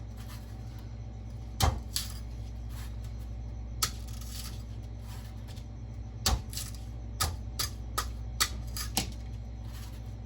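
Large Halfbreed Blades LSK-01 knife chopping and paring into the husk of a young coconut: about seven sharp knocks at irregular intervals.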